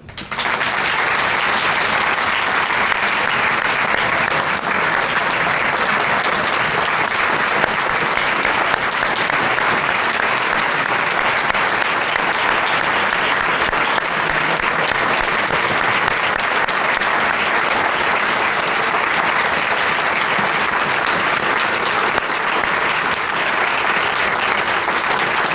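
Audience of a roomful of people applauding: the clapping breaks out all at once and keeps up at an even level without fading.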